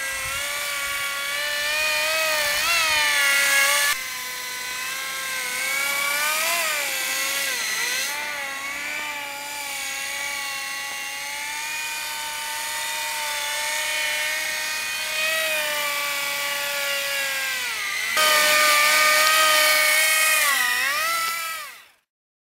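Converted Graupner Koala RC model helicopter, with a single fixed-pitch main rotor and a tail rotor, flying with a high, steady whine. The pitch dips and rises as the rotor speed changes with the throttle. The loudness changes abruptly a few times, and the sound fades out just before the end.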